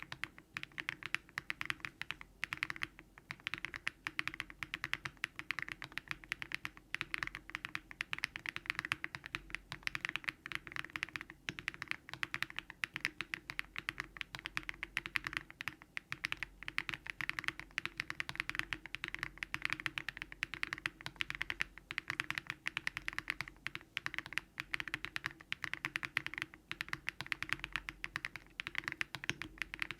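Fast, continuous typing on a Daring Run Polygon-7 custom mechanical keyboard built with Keygeek LM switches, full foam and a polypropylene (PP) plate: a steady stream of keystrokes without a break.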